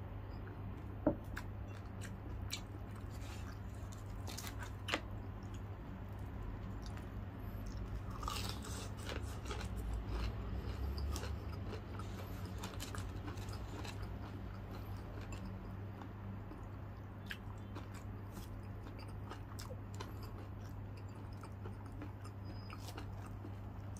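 Close-up mouth sounds of chewing and biting crispy deep-fried food, with scattered wet crunches and crackles that bunch up for a few seconds in the middle. A single sharp knock about a second in, over a steady low hum.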